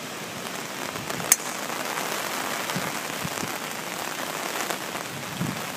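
Steady rain falling in a storm, an even hiss, with one sharp click a little over a second in.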